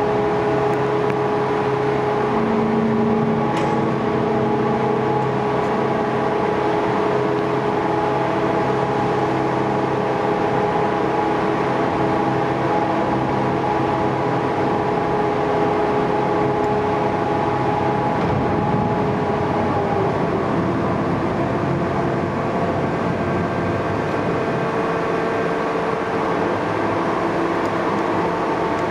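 Overhead drystack boat-stacker crane travelling with a boat in its cradle: a steady mechanical hum of its drive, with several steady tones that shift slightly about two-thirds of the way through.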